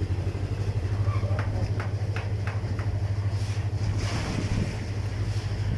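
A machine's engine running steadily with a fast, even low throb, with a few light knocks partway through.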